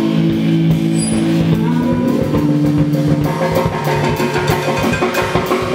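Live indie rock band playing: electric guitars holding notes over a steady beat on the drum kit.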